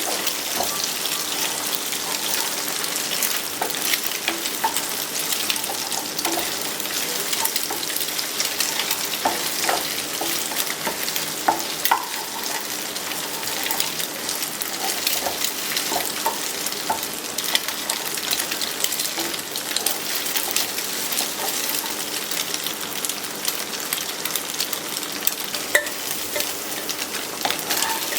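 Food frying and sizzling in hot oil in a pan, being stirred, with scattered sharp clicks and scrapes throughout over a faint steady hum.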